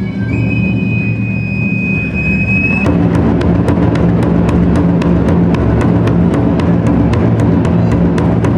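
Taiko drums: a steady low rolling rumble under a high held note, then from about three seconds in a quick, even beat of sharp clicking strokes over the rumble.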